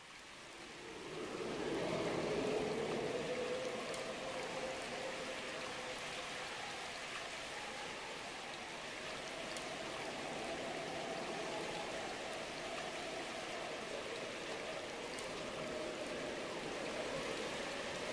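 Water sound effect at the close of a recorded song: a steady rushing hiss that swells in over about the first two seconds, with a faint wavering tone underneath and a few faint ticks.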